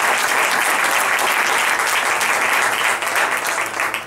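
Spectators applauding, a dense patter of many hands clapping that thins and dies away near the end.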